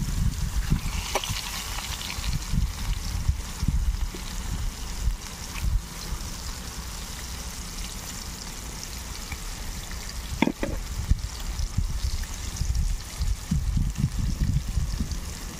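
Marinated fish slices sizzling steadily in shallow oil in a steel bowl over a wood fire, with two sharp clicks, about a second in and again about ten seconds in. A gusty low rumble of wind on the microphone runs underneath.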